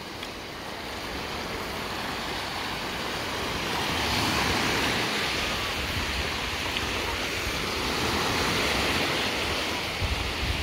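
Small sea waves breaking and washing up on a sandy beach: a steady rush of surf that swells twice, with wind rumbling on the microphone.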